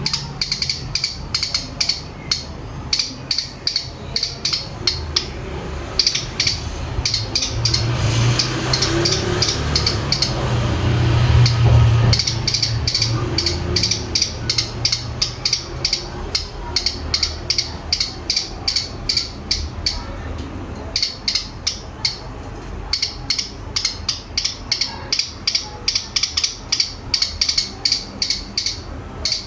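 Young male cigun (a small prinia-type songbird) calling: rapid, sharp ticking notes repeated several times a second in runs, with short pauses. A low rumble swells in the middle.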